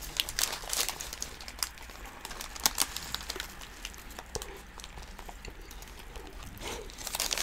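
Close-up eating sounds: chewing and mouth clicks on doner kebab wraps, with scattered crinkles of the paper wrappers as they are held and bitten.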